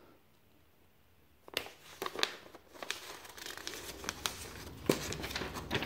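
Paper instruction sheet rustling and crinkling as it is unfolded and handled, starting about a second and a half in.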